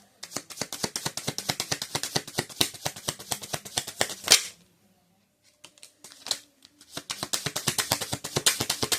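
Tarot cards being shuffled by hand: a fast run of crisp card clicks and flutters, a louder slap of the deck about four seconds in, a short pause, then the rapid shuffling clicks again.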